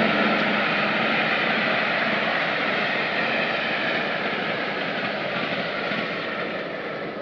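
Steady vehicle engine noise, slowly fading away.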